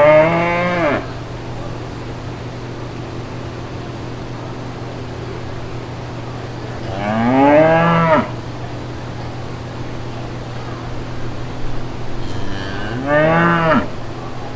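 Cow mooing three times, once at the start, once about halfway and once near the end, each call about a second long and rising then falling in pitch. A steady low hum runs underneath.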